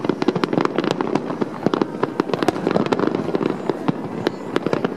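Aerial firework shells bursting in quick succession: a dense, continuous run of bangs and crackles, many a second, with no gaps.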